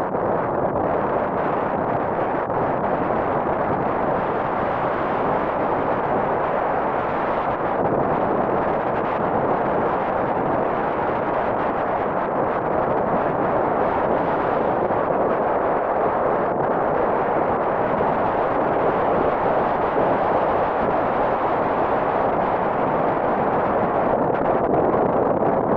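Steady roar of a river in spate, swollen muddy floodwater rushing past after a typhoon.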